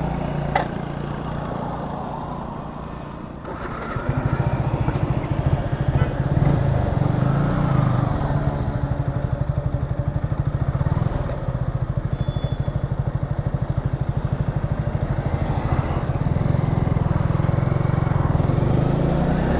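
Modified Yamaha R15 V3's single-cylinder engine running at low revs. It gets louder about four seconds in, then holds steady.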